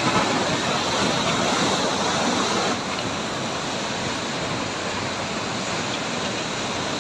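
Floodwater rushing in a torrent through barrage sluice gates: a steady, loud wash of churning water that drops slightly in level about three seconds in.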